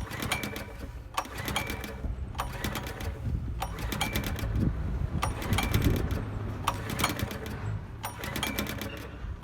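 Subaru SG550 portable generator's small engine running steadily after its carburetor has been overhauled and adjusted, with sharp clicks at uneven intervals over the running sound.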